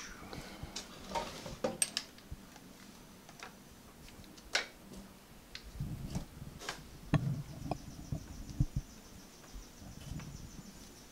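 Light metal clicks and taps with hand-handling noise, from working a motorcycle's clutch cable and its threaded inline adjuster by hand. The clicks are scattered and irregular, a few of them sharper than the rest.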